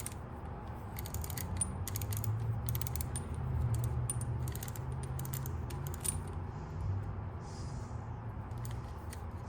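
Scattered small metallic clicks and ticks from a Yankee No. 30A spiral push screwdriver's mechanism as it is worked and handled, over a low steady hum that grows a little louder in the middle.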